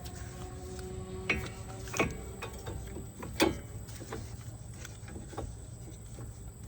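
A few irregular metal clicks and clinks, some with a short ring, over a low steady hum: loose metal hardware being handled.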